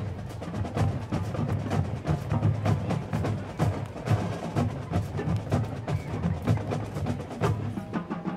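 A large marching band playing, with the drumline's sharp, rapid drum strokes standing out over the band.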